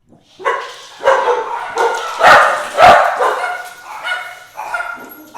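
Pet dogs barking loudly in a rapid, repeated volley, starting about half a second in. The barks overlap and are loudest around two to three seconds in.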